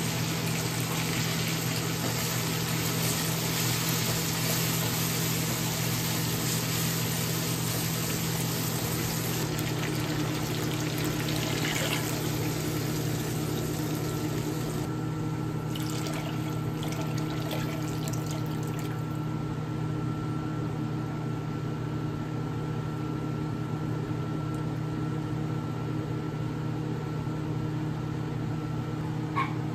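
Chicken and shrimp sizzling in a non-stick wok. About halfway through, water is poured in and the sizzle dies away, leaving a steady low hum.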